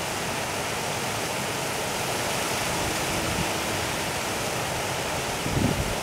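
River water running steadily over a shallow sandy, gravelly bed, an even rushing hiss. Near the end, wind begins to buffet the microphone.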